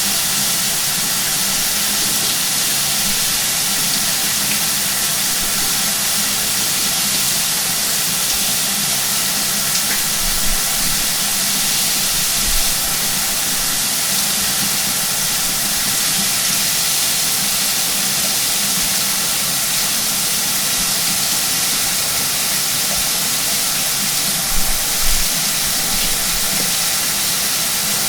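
Shower running: a steady hiss of water spraying from the shower head and falling, with a few brief low bumps about ten, twelve and twenty-five seconds in.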